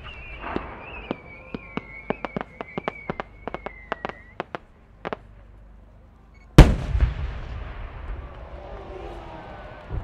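A 10-gō (about 30 cm) Japanese warimono chrysanthemum shell with rising attachments climbing: a high whistle held for about four seconds, slowly dropping in pitch, over a run of sharp pops. About six and a half seconds in the shell bursts with a very loud boom that rumbles and echoes away.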